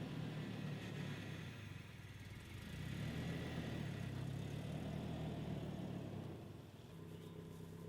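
Truck engine running as the truck moves off slowly, a steady low hum that gets louder about three seconds in and eases off near the end.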